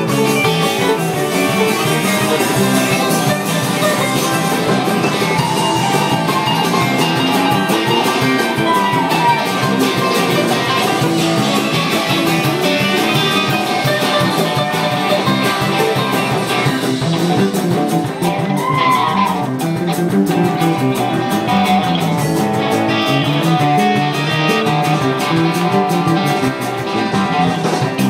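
Instrumental music led by guitar, with plucked strings and no singing.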